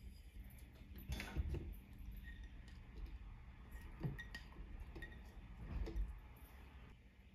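Garlic cloves and green chillies dropping into a plastic Magic Bullet blender cup, with a handful of light knocks and clinks as the plate touches the cup.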